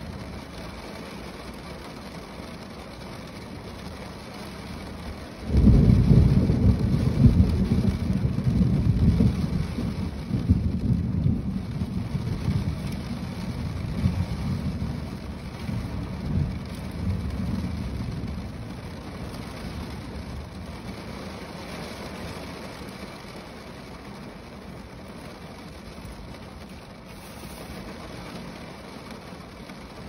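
Steady rain falling on a car roof. About five seconds in, a loud rumble of thunder breaks in suddenly and rolls on, fading slowly over about twelve seconds.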